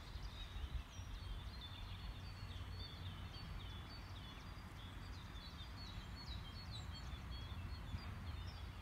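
Songbirds chirping and whistling, many short calls from several birds, over a low steady rumble.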